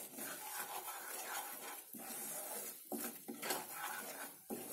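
Wooden spatula stirring and scraping a loose besan-and-ghee paste around a non-stick pan, soft rubbing strokes with a few brief pauses.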